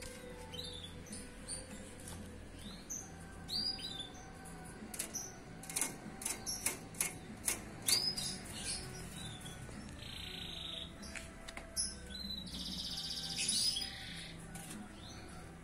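A four-month-old canary just beginning to find its song, giving short scattered chirps and whistled notes, with a denser trill near the end. A run of sharp clicks in the middle comes as it flits about the wire aviary.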